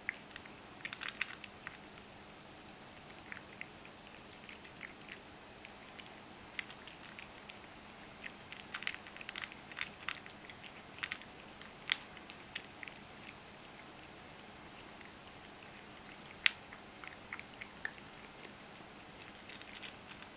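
Ragdoll cat crunching dry kibble: irregular runs of crisp crunches and clicks as it chews, with two sharper, louder clicks about twelve and sixteen seconds in.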